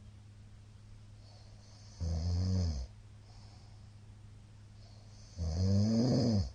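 A middle-aged man snoring heavily after a night of heavy drinking: two loud snores, one about two seconds in and a longer one near the end, each bending up and then down in pitch. A steady low hum runs underneath.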